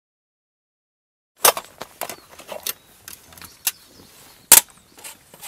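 Silence for about a second and a half, then a run of irregular sharp clicks and knocks, two of them much louder than the rest.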